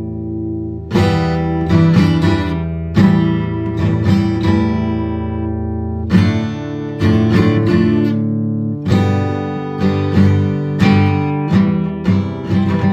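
Acoustic guitar strumming chords, a strong strum about once a second with each chord left to ring, with no singing.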